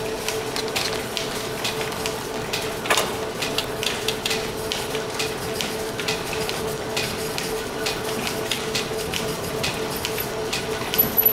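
1917 Brown & Sharpe turret lathe, driven by flat belt off a line shaft, running with a steady hum while cutting brass stock. Frequent light metallic clicks and clinks come from the tooling and chips, with a louder one about three seconds in.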